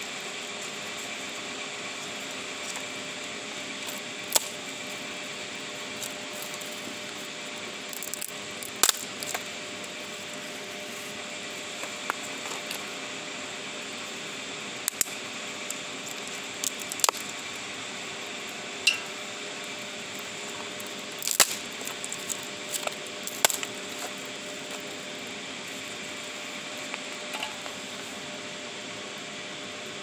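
Fire crackling in a steel fire pit: scattered sharp pops and snaps at irregular moments, with small clusters about a third of the way in and again about two-thirds through, over a steady rushing noise.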